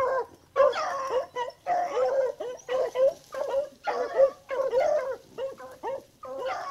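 Beagles baying on a trail in a steady run of short, repeated, high-pitched howling barks with almost no pauses.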